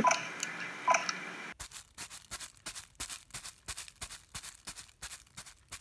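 Foley footsteps for a character running across grass, performed by crumpling a plastic grocery bag: a fast, even run of short crunching rustles, about four to five a second, starting about a second and a half in. Before that, faint room tone with a couple of small clicks.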